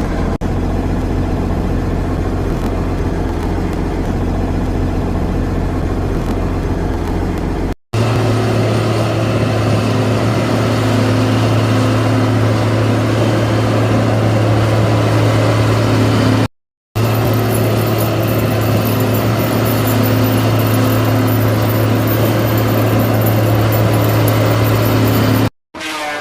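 Tigercat 724G wheeled feller buncher's diesel engine running steadily, in clips joined by sudden cuts. After the first cut, about eight seconds in, a strong steady hum stands out over the engine.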